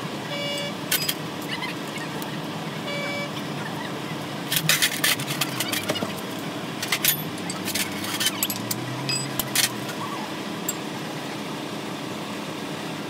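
Sharp metallic clinks and rattles of tools and bearing parts being worked in a truck wheel hub, bunched from about four to ten seconds in, over a steady hum of traffic.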